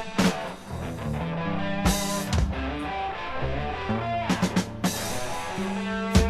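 Instrumental rock music: guitar and bass over a drum kit, with a quick run of drum hits about two thirds of the way through.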